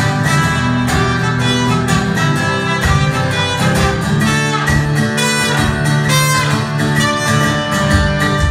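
A trumpet playing a sustained melody over strummed acoustic guitar in an instrumental passage of a song.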